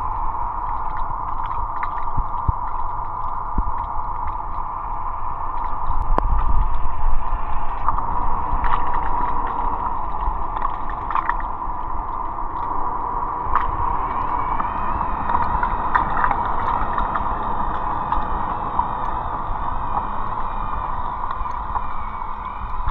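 Aiper Seagull Pro robot pool vacuum running in the pool: a steady motor hum with water gurgling and sloshing and a few light knocks.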